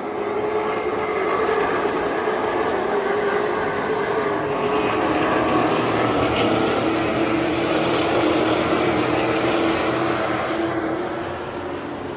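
A pack of Thunder Car stock cars racing past on the oval, their engines running hard together. The sound swells within the first second and stays loud while the engine note drops in pitch as the cars go by, then eases off near the end.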